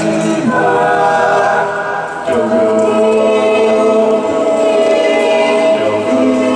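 An a cappella vocal group singing long held chords with no words, moving to a new chord about half a second in and again a little after two seconds.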